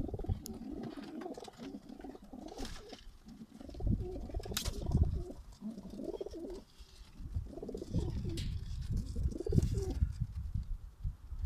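Domestic racing pigeons cooing: a run of low, warbling coos from the flock, with one sharp click a little before halfway.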